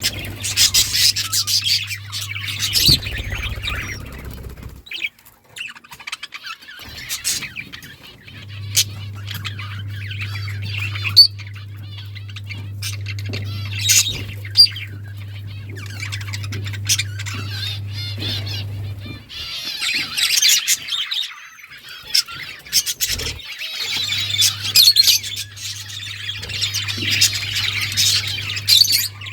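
Pet budgerigars chattering, a busy run of quick high chirps and squawks that thins out in the middle and picks up again near the end, over a low steady hum.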